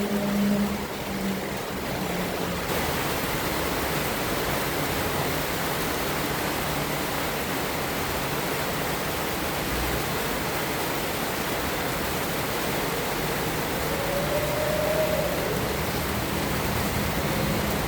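Heavy rain falling steadily, a thick, even hiss.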